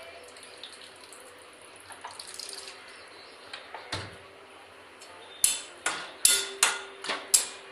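Water poured from a plastic bottle into a frying pan of cooking chicken and tomato. From about five seconds in, a metal spatula knocks sharply against the pan about three times a second as the food is stirred.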